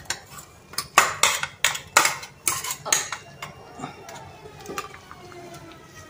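A metal spoon clinking and scraping against a steel vessel as soaked jowar is knocked out of it into a pressure cooker. There is a quick run of sharp clinks through the first half, then fainter taps with a little metallic ringing.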